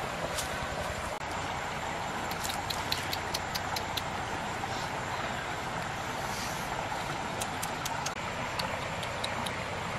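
Steady rushing of a shallow stream running over rocks, with scattered faint high ticks.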